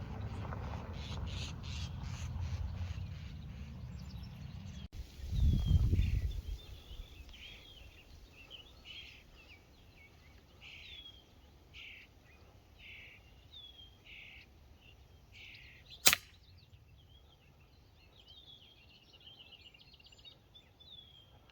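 A single sharp pellet air rifle shot about two-thirds of the way in, amid a run of short falling chirps repeated about once a second. The first quarter holds a low rumble that ends in a heavy thump.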